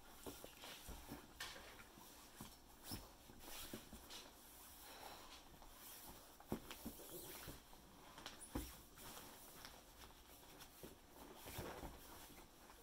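Faint, scattered soft taps and rustles of a baby crawling over vinyl-covered foam play mats, with a couple of sharper knocks about six and a half and eight and a half seconds in.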